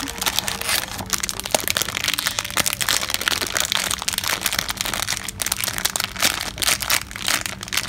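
Metallic foil blind-bag wrapper being crinkled and crumpled in the hands, a dense, continuous crackle. Near the start a thin cardboard box flap is pulled open.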